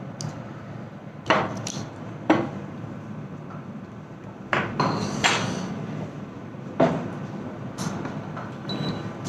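Kitchen clatter: about six sharp, irregularly spaced knocks of cookware and utensils being handled or set down on a counter, over a steady low hum.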